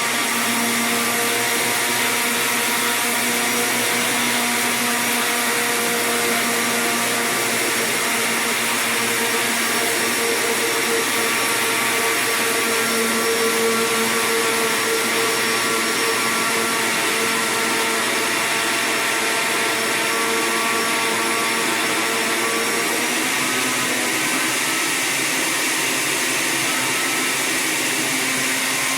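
Transparent countertop blender running steadily at speed, beating milk, garlic and salt while oil is added to emulsify homemade mayonnaise. The motor's tone shifts slightly a little over twenty seconds in.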